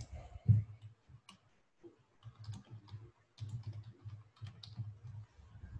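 Typing on a computer keyboard: an irregular run of quick key clicks with dull thuds underneath, the loudest about half a second in.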